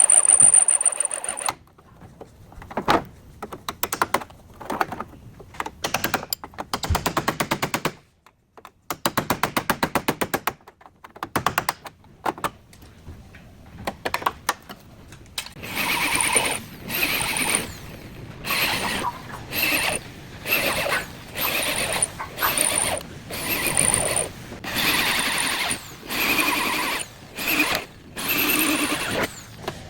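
Workshop tool noise during car body repair. A fast run of rapid clicks comes about a third of the way in. From about halfway, short mechanical bursts repeat roughly once a second, with a brief high whine at the very start.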